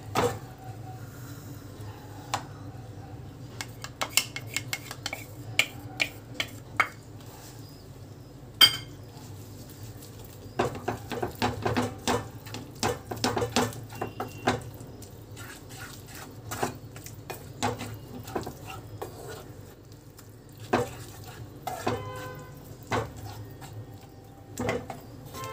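Wooden spatula stirring and tossing wet instant noodles in a non-stick pan: irregular clicks, knocks and scrapes as the spatula hits the pan, over a low steady hum.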